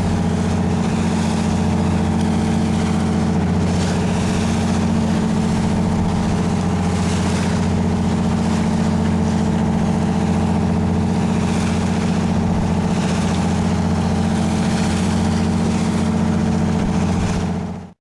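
A commercial tuna fishing boat's engine running steadily, with a hiss above it. The sound cuts off abruptly at the end.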